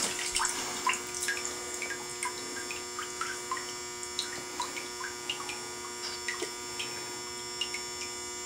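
A steady electrical hum, with small water drips falling irregularly in a bathtub, about two or three a second.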